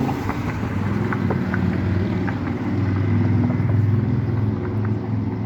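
Motor traffic on a city street: vehicle engines running, a steady low rumble with a few faint ticks.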